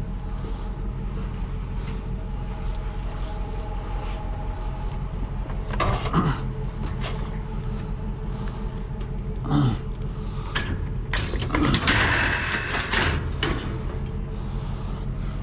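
A vehicle running with a steady low rumble, broken by a couple of short clunks about six and nine and a half seconds in and a longer rattling clatter around eleven to thirteen seconds in.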